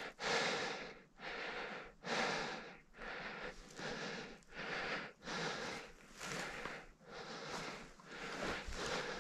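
A person breathing hard close to the microphone, in and out about every three-quarters of a second, winded from pushing through thick brush.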